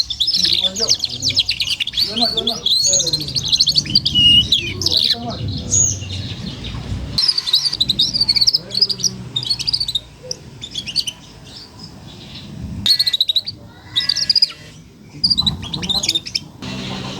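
Four-month-old juvenile domestic canary twittering: a rapid run of high chirps and warbling trills broken by short pauses. This is the soft practice song (ngeriwik) of a young canary learning to sing.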